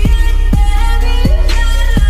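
Background music with a steady beat, low thumps about twice a second under sustained melodic tones.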